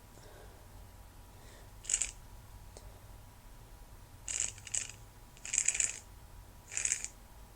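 A congested nose sniffling in short sharp sniffs, five in all: one, then two in quick succession, a longer drawn sniff, and a last one near the end. The sniffling comes from a head cold with a stuffed-up nose.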